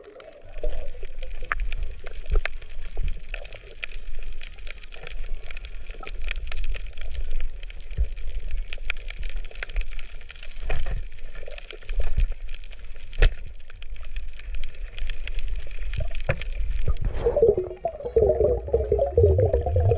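Underwater sound on a reef, picked up by a diver's camera: water noise with a steady scatter of sharp clicks and crackles. Near the end, a louder gurgling, bubbling water sound comes in.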